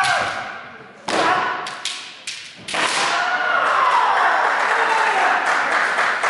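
Kendo bout: several sharp cracks and thuds of bamboo shinai striking and feet stamping on the wooden floor in the first three seconds, the loudest about a second and three seconds in. Then a long drawn-out kiai shout from a fencer, falling in pitch.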